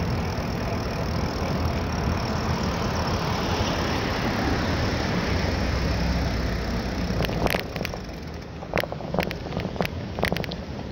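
Steady rushing wind and rolling noise from riding a bicycle with the camera mounted on the bike. The noise eases about seven seconds in, and a quick string of sharp clicks and rattles follows.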